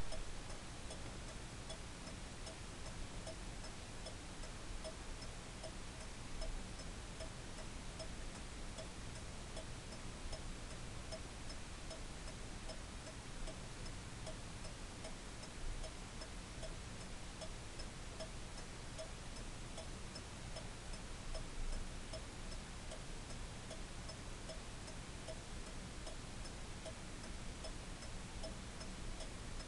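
Antique skeleton clock movement ticking steadily, the escapement giving an even, regular beat over a low background hum.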